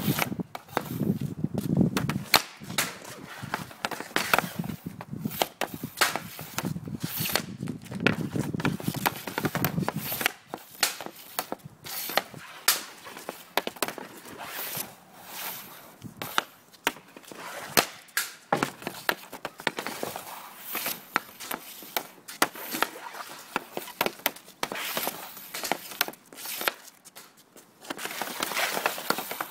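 Hockey pucks being shot with composite sticks: a long run of sharp, irregular clacks as blades strike pucks off a shooting pad and pucks clatter on the asphalt and hit the net.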